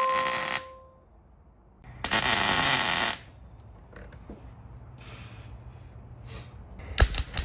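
Welder joining sheet-metal parcel shelf extensions to a car body with short tack welds: a harsh crackling burst that stops about half a second in, another about two seconds in that lasts about a second, and a third starting near the end, with quieter pauses between.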